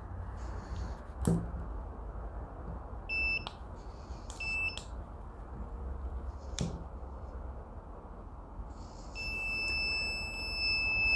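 Handheld optical engine-oil analyzer beeping: two short high beeps about a second apart, then one long steady beep near the end. A few light knocks of handling.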